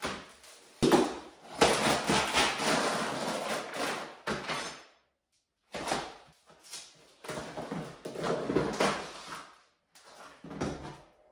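Sheets of old fibreboard floor underlayment being pried up and pulled loose by hand: two sharp knocks about a second in, then long stretches of scraping and cracking broken by short pauses.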